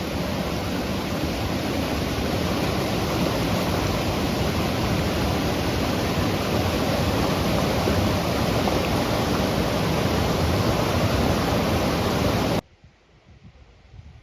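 Waterfall: a steady, loud rush of falling water that cuts off suddenly near the end, leaving only faint low rumbles.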